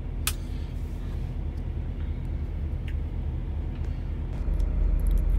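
Peterbilt 389's diesel engine idling steadily, heard as a low rumble inside the cab, with a sharp click about a third of a second in. The rumble grows louder near the end.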